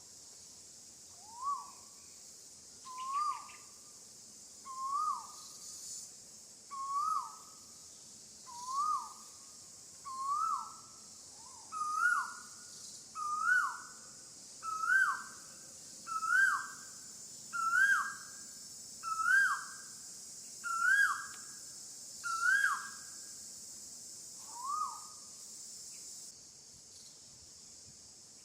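A bird calling a long series of whistled notes, each sliding up and then down, about one every second and a half. The notes climb steadily in pitch and loudness and then stop, over a steady high drone of insects.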